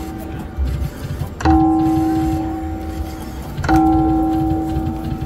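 A three-reel slot machine's electronic bell chime, sounding twice about two seconds apart, each ding ringing on and fading, over a low casino rumble.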